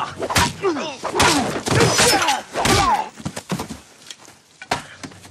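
Close-quarters fight: a wooden staff lands a rapid series of hard hits and thuds, mixed with men's short grunts and yells. About three seconds in it goes quieter, with one more sharp hit near the end.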